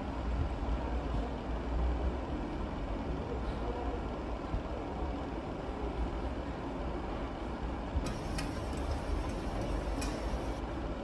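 Steady low rumble in the background, with a few sharp clinks of dishes and steel bowls against a stainless steel sink near the end.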